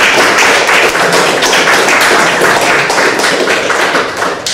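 Audience applauding, a dense patter of hand claps that starts to die away near the end.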